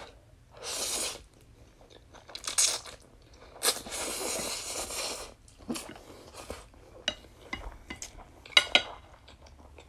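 Close-up eating sounds of spicy instant noodles: a few short slurps, then one long slurp about halfway through, followed by wet chewing, mouth smacks and small clicks of chopsticks against the plate.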